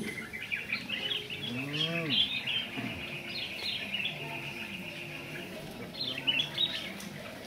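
Small birds chirping and twittering in quick, high calls, thickest in the first half and again near the end. A person's voice makes one short rising-and-falling sound about two seconds in.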